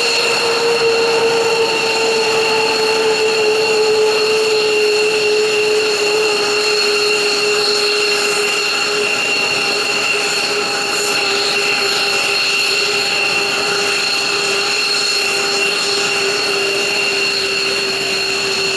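F-15J fighter's twin Pratt & Whitney F100 turbofans running during engine start: a loud, steady high-pitched whine with a lower hum that slowly drops in pitch.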